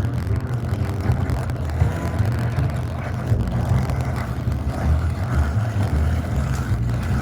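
InSinkErator garbage disposal running and grinding food scraps: a steady low motor drone with uneven grinding noise over it.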